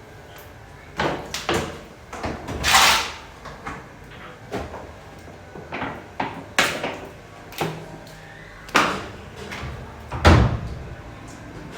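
A washing machine's parts being handled and set back in place: about a dozen separate clunks and knocks, with a longer scrape about three seconds in and a deep thud, the loudest, near the end.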